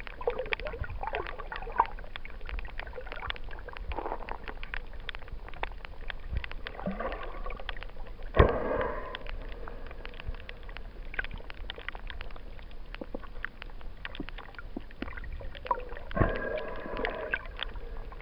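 Underwater reef sound: a steady crackle of many small clicks. Over it come louder gurgling, bubbling bursts, one about eight seconds in and another near the end.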